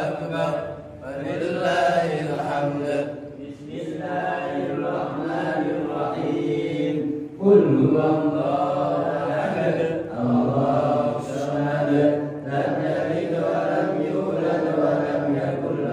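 A man chanting Quran recitation in Arabic, in long melodic phrases broken by short breath pauses, with a loud new phrase starting about seven and a half seconds in.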